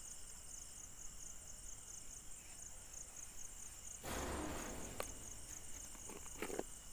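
Crickets chirping in a steady, rapidly pulsing high trill. About four seconds in, a brief rustle lasting about a second, then a click and a couple of short, soft noises near the end.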